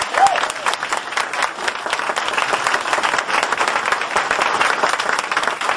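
Audience applauding, steady and dense throughout.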